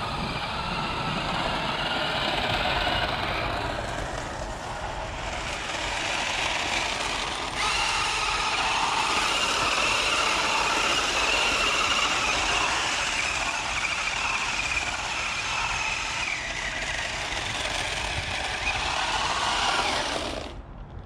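Toy RC drift car's small electric motor whining with its wheels running on the ground; the sound jumps up sharply about a third of the way through, holds a steady high whine, and cuts off suddenly near the end.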